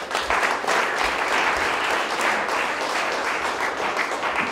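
Small audience applauding with hand claps, steady throughout and stopping just after the end.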